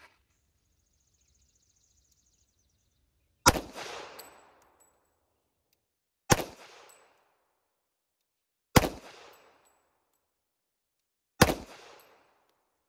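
Four single shots from a Ruger SR1911 .45 ACP pistol, fired slowly about two and a half seconds apart, each with a short echo trailing off after it.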